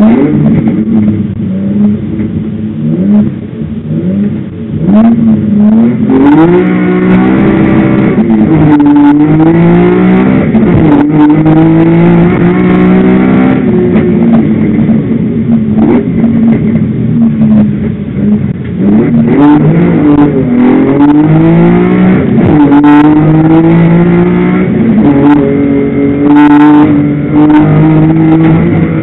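BMW 323i E21's straight-six engine, loud from inside the cabin. For the first few seconds it is blipped in short revs while the car stands at the start. About six seconds in it launches and is driven hard up the hill, the pitch climbing through each gear and dropping at every shift or lift for a corner.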